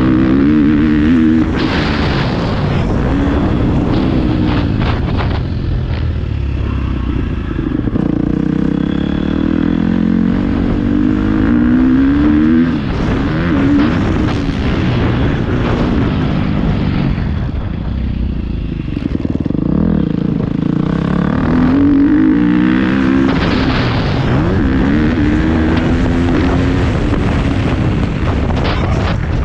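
Motocross bike engine revving hard through the gears, its pitch climbing and then dropping again and again as the rider shifts and rolls off the throttle around the track.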